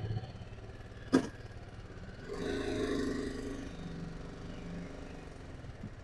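Motorcycle engine running at low speed as the bike rolls forward, louder for a moment between about two and three and a half seconds in. A single sharp click about a second in.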